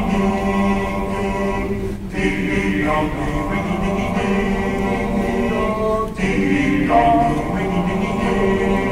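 Mixed high-school choir singing held chords in several parts, with brief breaks between phrases about two and six seconds in.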